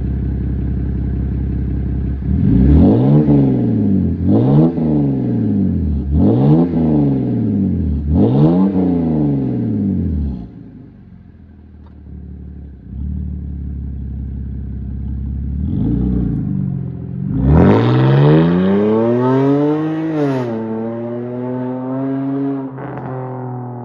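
BMW 128i's 3.0-litre straight-six, straight-piped apart from the primary catalytic converters, idling and then revved four times in quick succession. After a quieter idle and a short blip, it pulls away under hard acceleration: the revs climb, drop at a gear change and climb again as the car drives off and fades.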